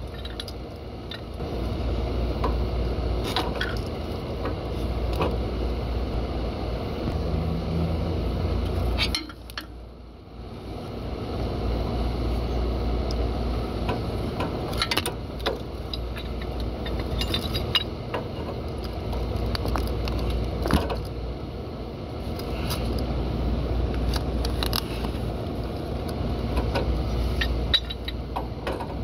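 Scattered small metallic clicks and clinks of hands working on a generator's fuel solenoid, wires and brass fuel fittings, over a steady low background rumble that drops out briefly about a third of the way in.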